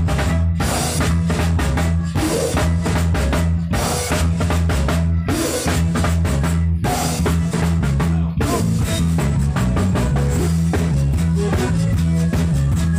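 Live zydeco band playing: a Mapex drum kit beats out a dense rhythm with snare and bass drum over a steady electric bass line.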